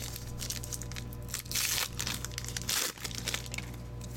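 Foil trading-card pack wrapper being crinkled and torn open by hand, with two louder crackles about halfway through and just before the three-second mark.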